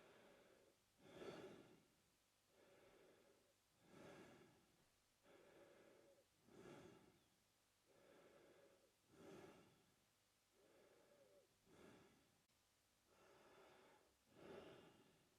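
A man breathing through his mouth, faint, slow and even: about one breath in and out every two and a half seconds. Each breath pairs a short, sharper, louder half with a softer, longer one.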